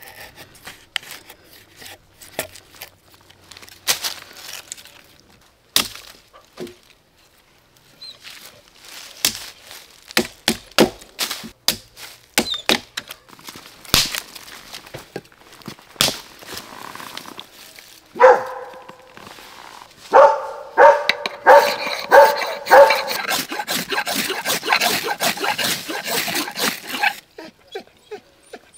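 Scattered knocks and snaps of a knife working wood and dry sticks being handled. Then, for about nine seconds near the end, a fast run of rasping, squeaky scrapes, about four a second, as a ferrocerium rod is struck into a pile of wood shavings to throw sparks.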